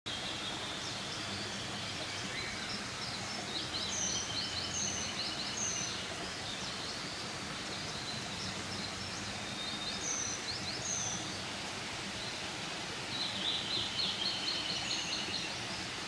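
Songbirds singing at dawn: several trilled phrases and short, high slurred notes, in three bouts about a quarter of the way in, past the middle and near the end, over a steady background hiss.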